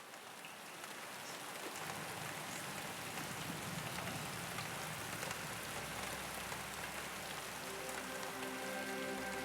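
Steady rain pattering, fading in and growing louder, with scattered small drops. A held keyboard pad chord comes in softly near the end.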